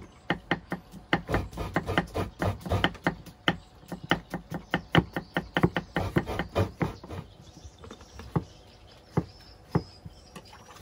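Knife chopping food, quick sharp strikes about three or four a second that thin out to a few single strikes after about seven seconds.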